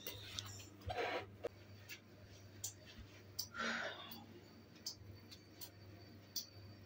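Faint kitchen handling sounds: scattered light clicks and taps over a low steady hum, with two brief soft rustling sounds.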